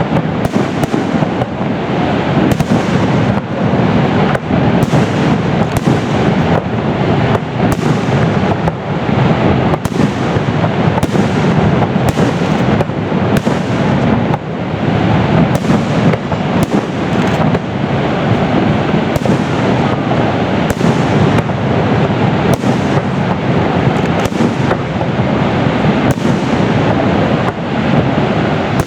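Fireworks display: a loud, unbroken run of shell bursts and crackling reports, several every second, blending into a continuous din.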